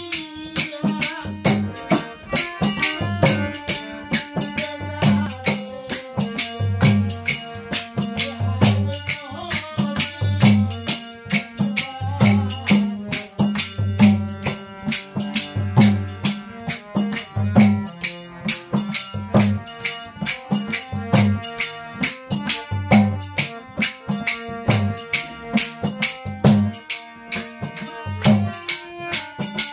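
Live Baul folk music: a harmonium holding chords over a two-headed dhol drum beating a steady rhythm, with jingling hand percussion and hand claps.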